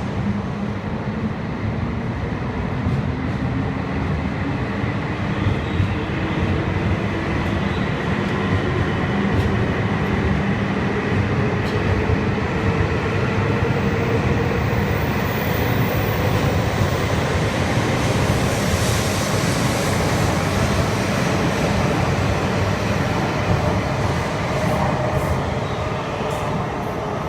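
Tohoku Shinkansen train pulling away and accelerating, its electric traction motors giving a whine that rises slowly in pitch over rolling rumble and running noise.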